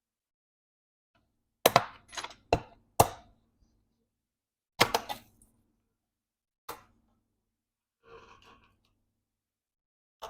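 Sharp clicks and knocks from a MacBook Pro's aluminium bottom cover as it is popped off and handled: a quick run of four, then two single knocks a couple of seconds apart.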